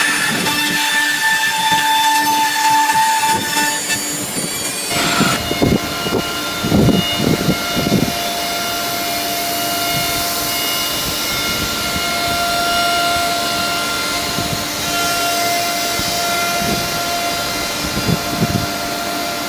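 CNC nesting router (EK1 1328 with automatic tool changer) running: a steady high whine from the spindle over machine noise. The whine changes pitch about five seconds in, with a few low surges over the next few seconds.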